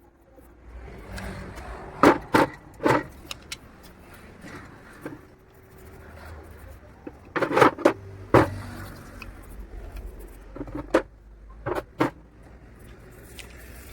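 Irregular metallic knocks and clinks, in three clusters, of parts and tools being handled while a manual push grass cutter is repaired.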